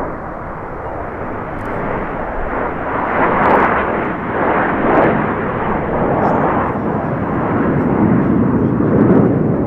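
Canadair CT-114 Tutor jets, a nine-ship formation, flying past: a steady, loud jet rush that builds and swells a few times, loudest about three and a half, five and nine seconds in.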